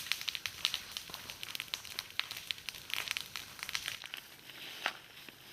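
Fire crackling: a steady scatter of small irregular pops and snaps, with one sharper snap near the end.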